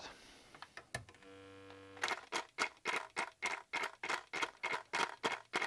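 Black & Decker jigsaw on the output of an overloaded 12 V/800 W Victron Atlas Combi inverter. About a second in there is a click and a short steady hum, then a stuttering run of sharp pulses, about four a second. The inverter is hitting overload and cutting the saw in and out.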